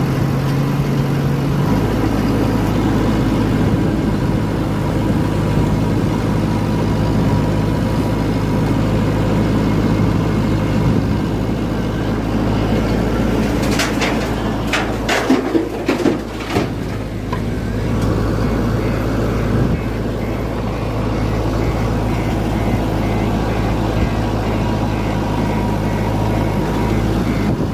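Diesel engine of a construction machine such as a JCB running steadily, with a few sharp knocks or clanks about halfway through.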